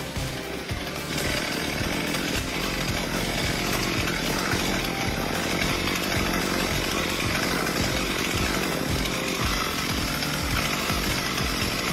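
Chainsaw running at high revs, cutting steadily; it gets louder about a second in.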